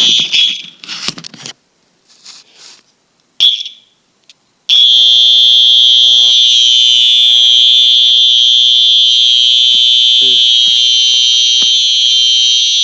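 Simplex fire alarm sounding: a few short bursts, then from about five seconds in a continuous steady high alarm tone. It is not that loud, which the owner puts down to underpowering it.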